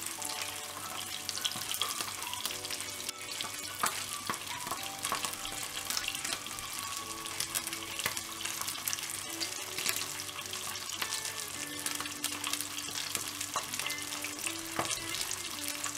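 A whole spice-coated pomfret frying in shallow coconut oil on a flat tawa over a low flame, sizzling and crackling steadily with many small spattering ticks.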